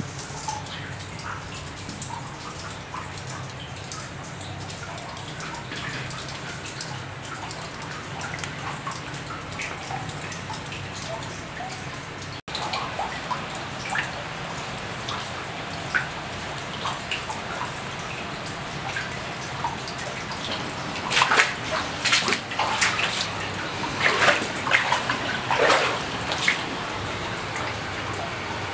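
Mineral runoff water dripping in a mine tunnel, single drops plinking into a shallow pool on the floor. Louder, irregular splashing noises cluster in the last several seconds.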